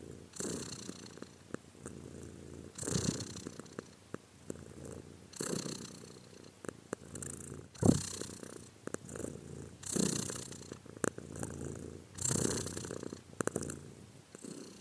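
Domestic cat purring, swelling louder in a regular rhythm about every two and a half seconds as it breathes in and out, with a few small clicks.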